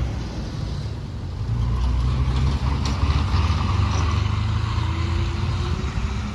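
Steady low rumble of motor traffic on the road, growing a little louder about a second and a half in.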